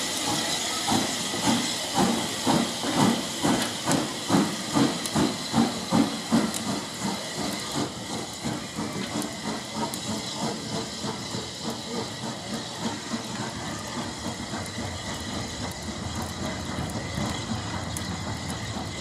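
Southern Railway S15-class steam locomotive No. 847 starting away, its exhaust chuffing in strong regular beats about two a second that then quicken and grow fainter as it draws off, over a steady hiss of steam.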